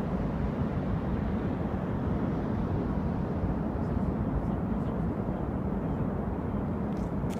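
Snow avalanche's low, steady rumble.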